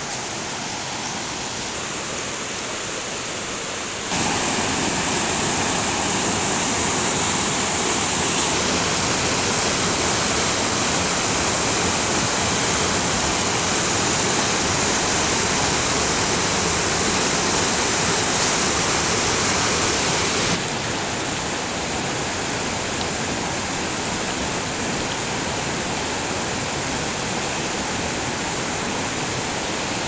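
Mountain river rushing over rapids between boulders, a steady dense water noise. It steps up suddenly about four seconds in and drops back a step about two-thirds of the way through.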